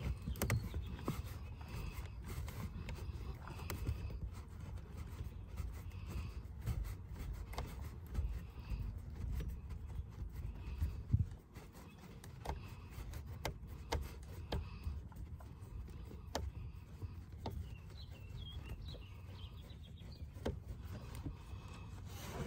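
Screwdriver and hands working on a car power seat's frame and motor fittings: scattered small metallic clicks and handling noise over a low rumble, with one louder knock about eleven seconds in.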